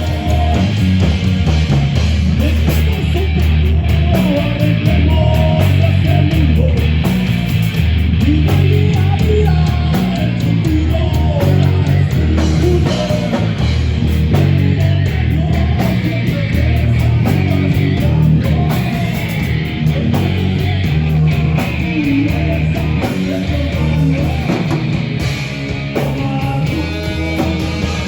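Heavy metal played live by a band: loud distorted electric guitars over bass and drums, keeping up steadily throughout.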